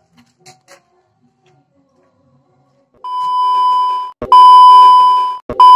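An electronic beep tone, steady and high, sounds three times after a quiet start: first for about a second, then a longer, louder one, then a short one near the end, each starting with a click.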